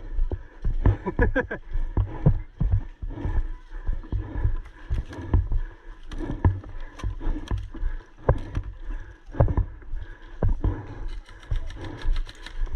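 Irregular thuds and clatter of a player moving quickly on foot, footsteps and gear knocking, with scattered sharp clicks and a low rumble throughout.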